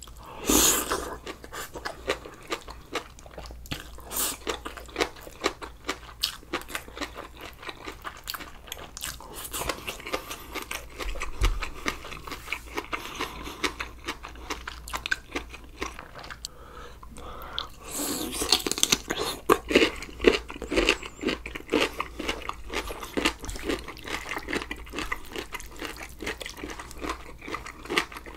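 A person chewing and crunching food, with many small crisp clicks, growing louder for a few seconds about two-thirds of the way through.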